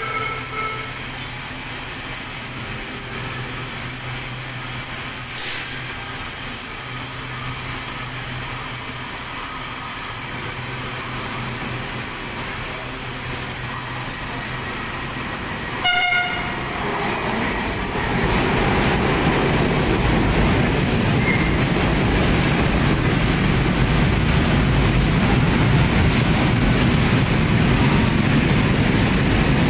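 Light-rail train at a station platform: steady electrical and equipment hum, a short horn note about halfway through, then a louder, even rumble and rail noise of a train moving along the platform to the end.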